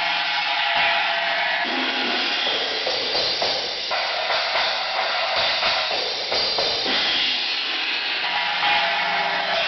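China cymbals crashed repeatedly in a drum-kit groove, a loud, trashy ringing wash over drum hits.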